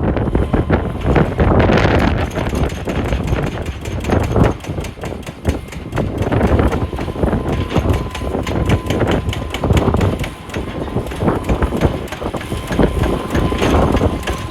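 Wheel loader's diesel engine running under load, with rocks clattering and knocking in rapid, irregular strikes.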